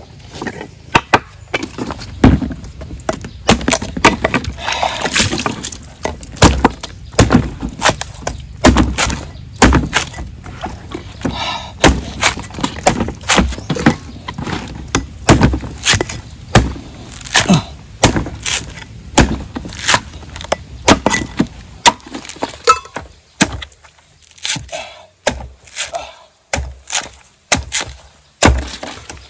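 A heavy cleaver chopping and shaving the green husk off a young coconut, its blade striking husk and a wooden chopping board in repeated sharp chops, about one or two a second at an uneven pace.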